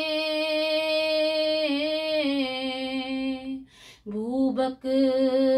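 A girl singing a naat, an Urdu devotional poem, solo with no instruments. She holds one long note for about three and a half seconds, breaks briefly for breath, then starts the next phrase on a rising note.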